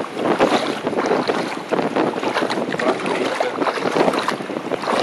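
Shallow water splashing and sloshing around wading legs, a constant crackly patter of small splashes, with wind on the microphone.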